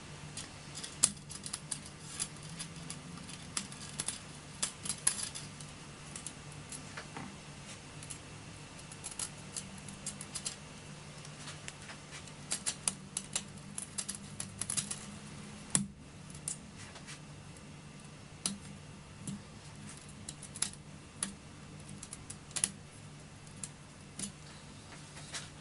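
Irregular small metal clicks and taps of hand assembly: a T-nut, M5 screws and a cast 90-degree corner bracket being fitted into aluminium V-slot extrusion. A steady faint low hum runs underneath.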